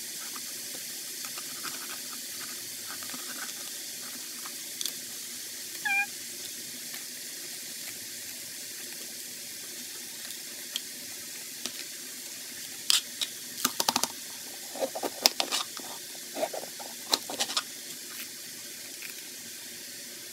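Knife cutting a green bell pepper on a plastic cutting board: faint slicing, then a run of sharp taps of the blade on the board between about 13 and 17 seconds in, over a steady hiss. A brief high-pitched squeak comes about six seconds in.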